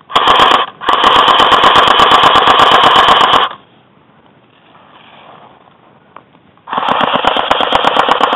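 Airsoft gun firing full-auto in rapid bursts, loud and close: a brief burst, then a longer one of about two and a half seconds, and after a pause another burst starting near the end.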